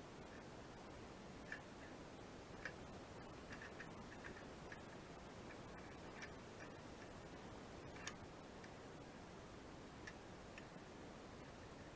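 Faint, irregular clicks and ticks of a hand ratchet wrench turning a bolt, with a few sharper metal knocks, the loudest about 1.5, 2.5 and 8 seconds in, over a steady low hiss.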